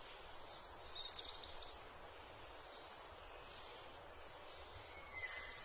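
Faint outdoor background noise with a few high bird chirps: a quick run of chirps about a second in and another near the end.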